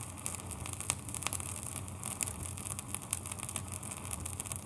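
Vintage vinyl record surface noise: a steady hiss scattered with irregular crackles and sharp pops, over a low hum.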